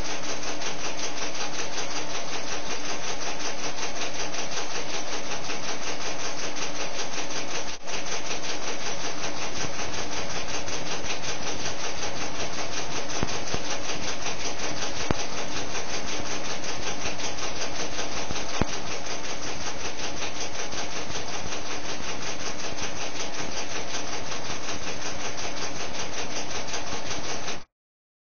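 Webcam's audio circuit being struck by particles from an accelerator beam, heard as a steady, dense crackling static with a few sharper clicks; it cuts off suddenly near the end.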